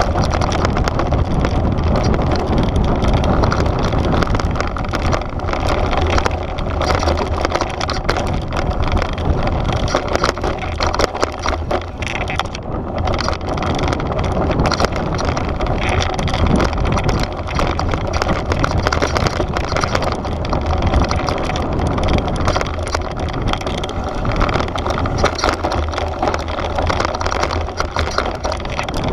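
Devinci Wilson downhill mountain bike descending at speed over loose dirt and rock: knobby tyres rolling on the ground, with constant rattling and clattering from the bike over the bumps. A steady low wind rumble on the camera microphone underlies it.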